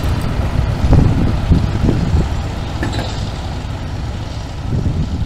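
Farm tractor's diesel engine working hard under load as it drags a weight-transfer pulling sled, with surges in the first couple of seconds, then easing slightly.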